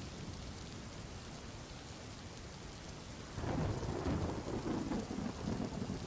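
Steady rain-sound ambience. About halfway through, a low roll of thunder rumbles in and carries on under the rain.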